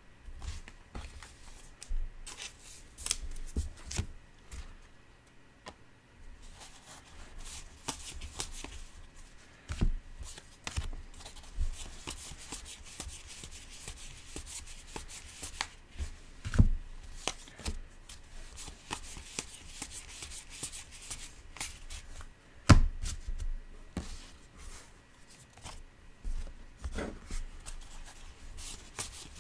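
Trading cards, 2019 Topps Allen & Ginter baseball cards, sliding and flicking against each other as a stack is thumbed through one card at a time, a steady run of light rustles and clicks. A few sharper knocks stand out, about ten, seventeen and twenty-three seconds in.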